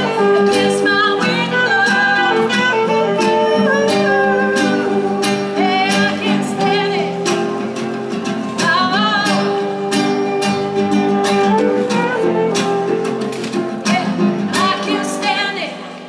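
Live acoustic music from concert harp, acoustic guitar and saxophone, with a wavering lead melody over held chords; the music thins out near the end.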